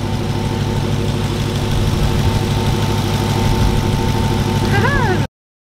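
Dodge Challenger SRT Hellcat Redeye's supercharged 6.2-litre HEMI V8 idling steadily, a thin steady whine over the low engine note. The sound cuts off abruptly near the end.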